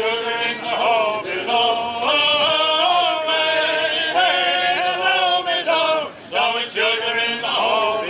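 A small group of men singing unaccompanied in close harmony, holding long notes.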